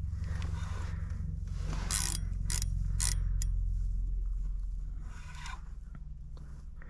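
Fishing reel being cranked in on a hooked fish, its gears running with a low rumble that eases about five seconds in. Several sharp clicks come between about two and three and a half seconds in.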